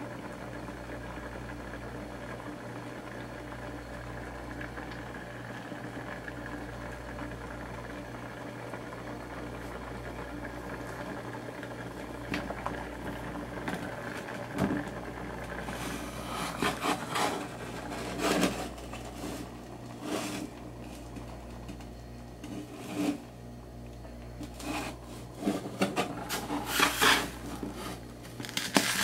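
Steady electric hum from an infrared cooking range running under a lidded pot of simmering soup, its low drone dipping about every three seconds. From about halfway, irregular rattles and knocks come in, louder toward the end.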